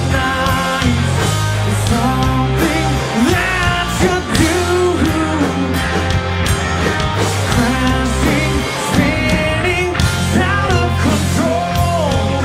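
Live rock band playing a song: electric guitars, bass guitar and a drum kit, with a sung melody over a heavy, steady bass line.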